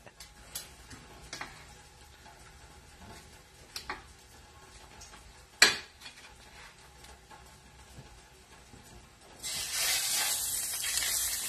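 A few sharp clicks of metal tongs while steaks are handled on a plate. About nine seconds in, a floured ribeye steak is laid into hot oil in a stainless steel pan and starts sizzling loudly and steadily.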